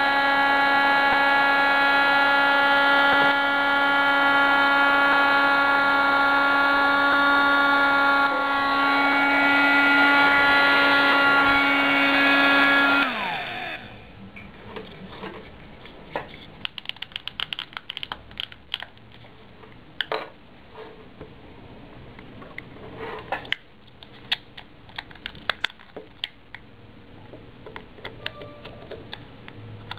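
Small motor of a mini USB keyboard vacuum cleaner running with a steady high whine, then switched off about halfway through, winding down in pitch. After it stops, scattered plastic clicks and taps of the device being handled.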